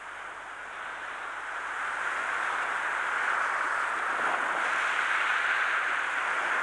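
Small waves breaking and washing up the beach: a steady rushing hiss that grows louder over the first few seconds and then holds.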